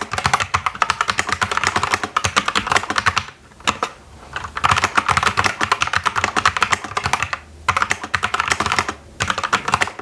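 Fast typing on a Havit KB487L mechanical keyboard with red linear switches: a dense run of key clicks and clacks, broken by short pauses a few times.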